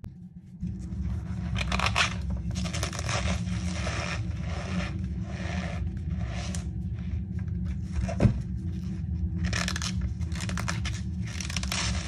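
Hands squeezing and crumbling chunks of reformed cornstarch and gym chalk, an irregular run of powdery crunching and squeaking. There is a sharp snap about eight seconds in, and a steady low hum underneath.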